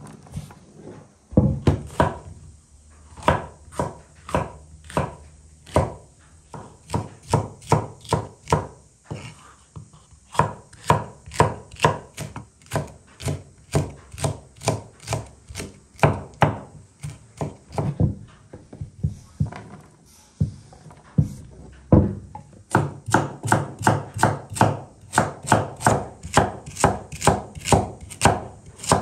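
Kitchen knife chopping green bell pepper and then slicing carrot on a wooden cutting board: quick, sharp knocks of the blade on the board, about two or three a second in uneven runs, with a short pause about two-thirds of the way through.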